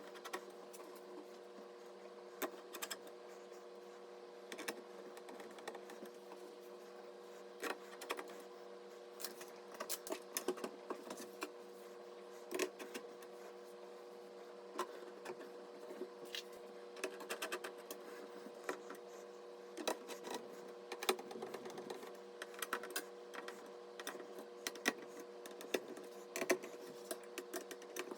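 Irregular light clicks and taps of computer hardware being handled and fitted during a PC assembly, over a steady hum.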